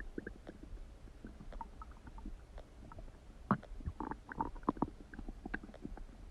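Human stomach gurgling: a string of small pops and squelches, with a burst of louder gurgles in the middle.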